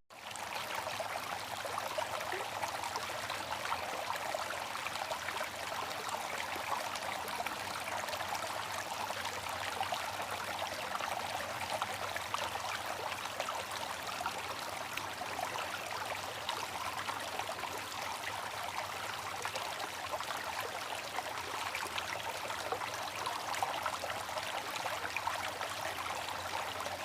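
Water running in a steady, even trickle.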